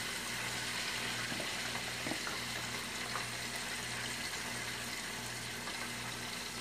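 Hot oil bubbling and sizzling steadily in a deep pot as battered chicken wings deep-fry.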